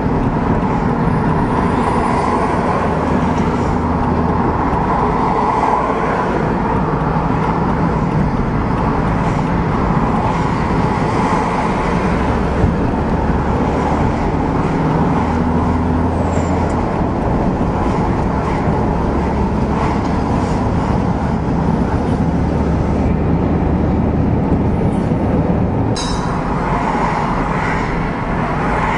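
Steady engine hum and tyre-on-road noise of a vehicle driving at motorway speed, heard from inside the vehicle, with heavy lorries and cars close alongside.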